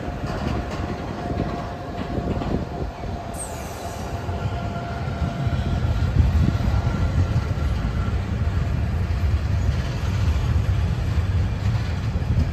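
A train running on the rails, a steady low rumble that grows louder about five seconds in, with a faint steady whine above it.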